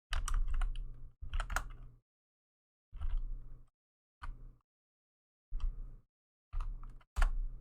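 Typing on a computer keyboard in several short bursts of key clicks with pauses between them, entering a command.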